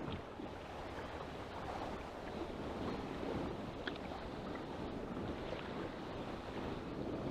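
Choppy sea water sloshing and slapping against a kayak hull, with wind noise on the microphone and a few faint light ticks.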